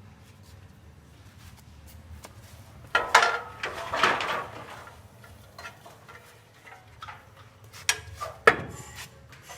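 Clattering and knocking of hard parts being handled. A cluster of loud clatters comes about three seconds in, and a few sharp knocks near the end.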